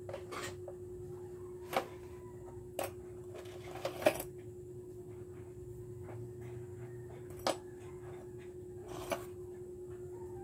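Small steel blade blanks clicking against each other and against the hands as they are handled, about five sharp clinks, over a steady low hum.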